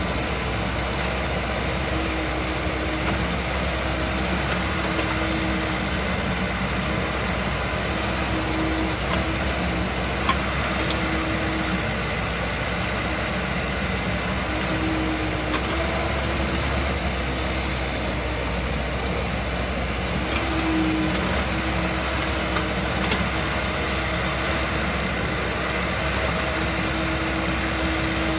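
Komatsu hydraulic excavator's diesel engine running steadily while the machine digs. A higher note swells in and out several times over the drone as the boom and bucket work.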